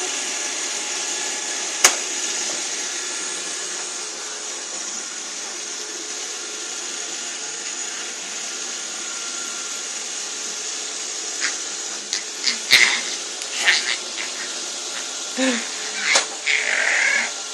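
Robot vacuum cleaner running: a steady whir with a high whine, easing slightly in level. A sharp click comes about two seconds in, and a cluster of knocks and clatter comes over the last few seconds.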